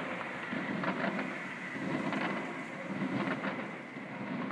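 Fireworks display: a steady crackling hiss with a low rumble and a few sharp pops scattered through.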